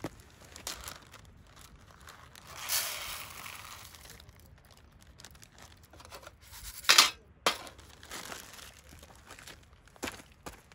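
Crinkling and rustling of something being handled, with scattered small clicks, a longer rustle about three seconds in and a short, loud, sharp rustle about seven seconds in.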